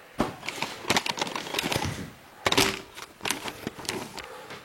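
Irregular clicks, knocks and rattles from an object being handled and shifted, with one louder knock about two and a half seconds in.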